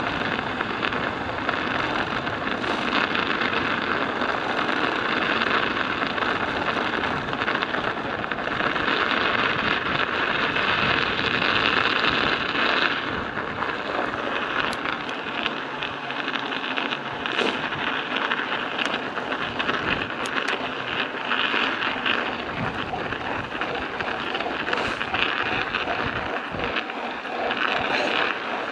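Studded bicycle tyres rolling over icy, snowy road, the metal studs making a steady rasping clatter, with a few sharper clicks here and there.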